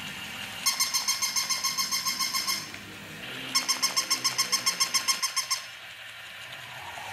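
Battery-operated plush toy puppy making its electronic yapping: two runs of rapid, evenly spaced yaps, each about two seconds long, the first starting under a second in and the second about three and a half seconds in.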